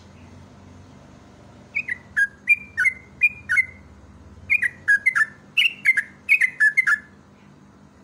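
Yellow-vented bulbul (trucuk) singing two bursts of quick, bubbly, falling whistled notes. The first starts about two seconds in, and the second follows a little after the middle; each lasts about two seconds.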